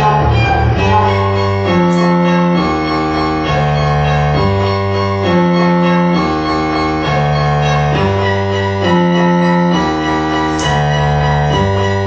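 Synthesizer music: a sequenced pattern of sustained, organ-like notes stepping to a new pitch about once a second over a steady bass.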